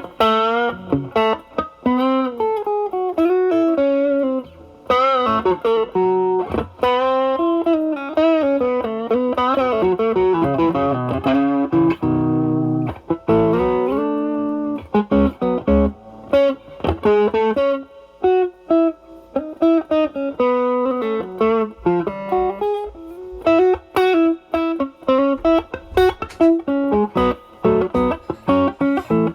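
Electric guitar, a Stratocaster with single-coil pickups, played through an Ibanez Tube Screamer Mini overdrive pedal into a Marshall Valvestate amp's drive channel, with the overdrive cleaned up to a light crunch. Improvised blues lead lines with bent notes and vibrato, mixed with short strummed chords.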